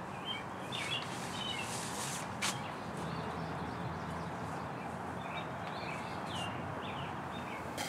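Birds chirping off and on over a steady outdoor background hum, with one sharp click about two and a half seconds in.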